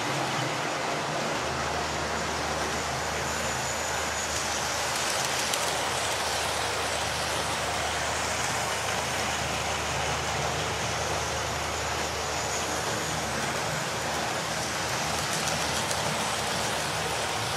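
Electric model trains running round the layout's tracks: a steady, unbroken whir and rumble of small motors and wheels on the rails.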